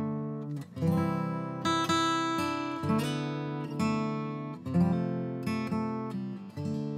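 Background music: an acoustic guitar strumming chords, a new strum about once a second.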